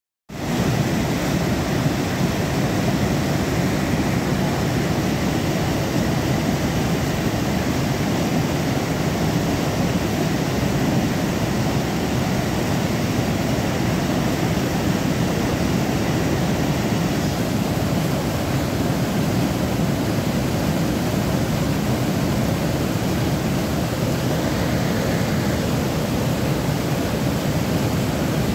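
Fast mountain stream rushing over rocks: a loud, steady wash of whitewater.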